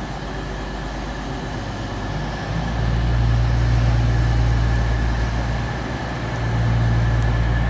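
Class 222 Meridian diesel multiple unit's underfloor diesel engines running with a deep, steady hum that grows louder about two and a half seconds in, eases briefly around six seconds, then picks up again.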